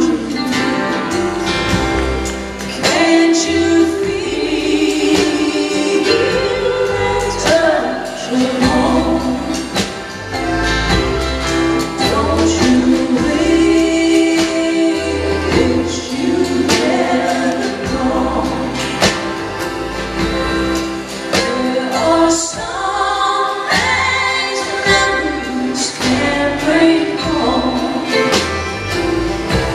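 Live roots band playing, with several voices singing together in a choir-like blend over acoustic guitars and a rhythm section, heard from the audience.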